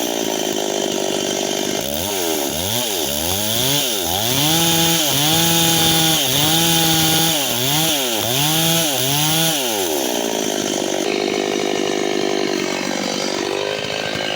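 Chainsaw running while cutting timber, its engine speed dropping and rising again about once a second, then holding steady at a high rev near the end.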